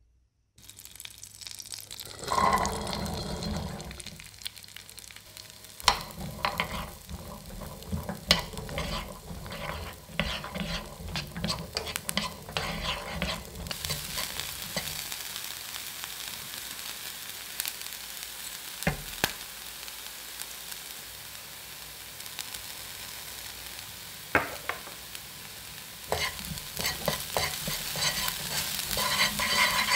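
Corn kernels frying in a nonstick pan with a steady sizzle, stirred and pushed about by a wooden spatula that makes frequent clicks and scrapes. The stirring eases off for several seconds in the middle, leaving just the sizzle, then picks up again near the end.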